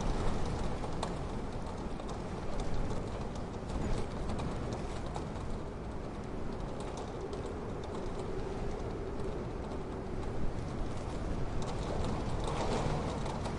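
Snowstorm wind ambience: a continuous low rumble of wind, with scattered light ticks and knocks throughout.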